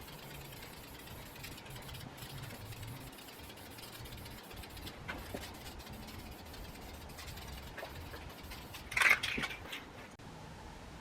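Garage heater running with a steady low hum, with faint clicks of handling throughout and one short, loud noise about nine seconds in.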